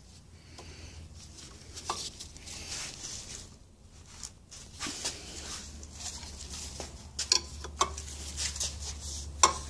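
Scattered light metallic clicks and clinks of a wrench on an outboard gearcase's steel drive shaft as it is fitted onto the shaft's flat, with the rustle of gloved hands handling the parts. The clicks come more often in the second half.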